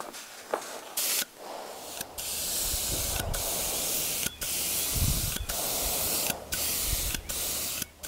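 Compressed-air gravity-feed spray gun spraying paint, a strong hiss in a series of bursts with brief breaks as the trigger is released between passes.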